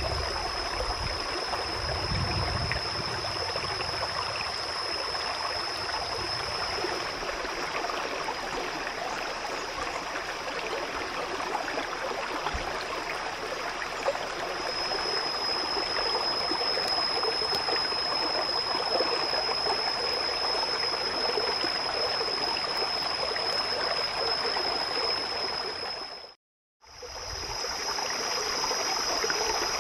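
Steady rush of flowing water, like a forest stream, with a thin steady high whine over it; the sound cuts out for a moment near the end.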